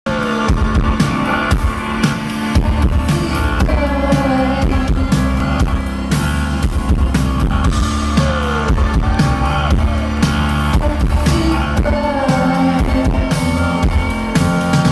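Electronic pop band playing live through a concert PA, heard from the crowd: a steady beat with bass and keyboards, and sliding notes that glide down and up several times.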